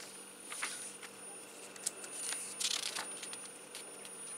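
Glossy catalogue pages rustling as they are turned by hand, in two short rustles. Under them runs a steady, thin, high-pitched whine, a recording glitch.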